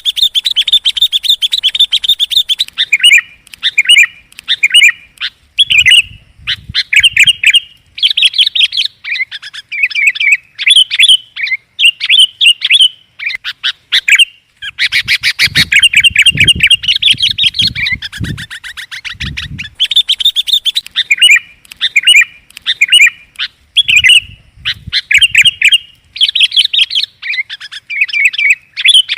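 Sooty-headed bulbul (kutilang) song played as a bird-luring call: loud, bright, chattering phrases repeated with short pauses, with a long rapid trill about halfway through. A few dull low thumps sound underneath.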